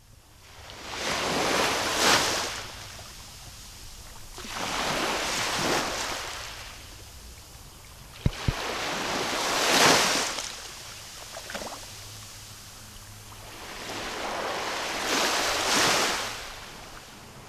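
Small waves washing up on a sandy beach: four swells of surf a few seconds apart, each rising and falling away. A brief low thump about eight seconds in.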